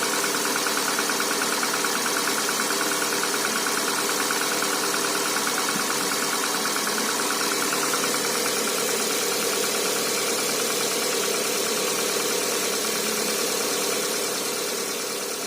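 Chevrolet Cruze's Z18XER 1.8-litre four-cylinder petrol engine idling after a cold start in sub-zero temperature, with a fast, even knocking over the idle. The knock is strongest at first and thins out about halfway through, and the whole sound fades near the end.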